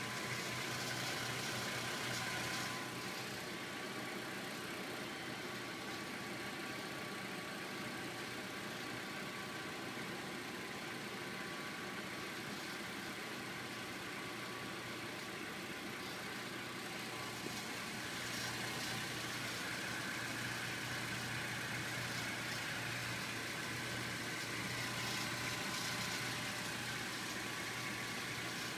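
2012 Honda Civic's four-cylinder engine idling with the car standing still, in its first minutes after a cold morning start, air conditioning off, with a faint steady tone running under it. From about two-thirds of the way in, a sparse, scratchy abnormal noise joins it, heard from around the right front wheel.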